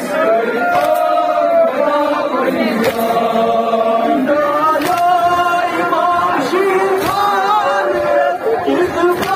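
Men chanting a noha, a Kashmiri Shia lament, in unison with long held, wavering notes, led by one voice amplified through a horn loudspeaker. A sharp slap of chest-beating (matam) comes about every two seconds.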